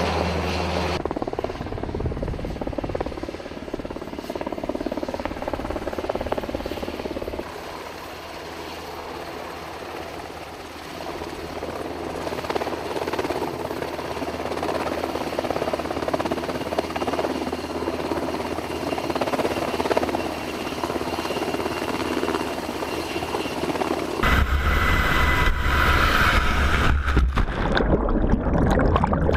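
MH-60S Seahawk helicopter running steadily, its rotor and engines heard in flight and in a low hover over water. Near the end it is much louder and closer, heard down in the rotor downwash at the water's surface.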